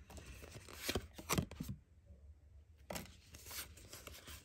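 Pokémon trading cards being handled: a few quick rustles and flicks in the first second and a half, a quiet stretch, then another flick about three seconds in.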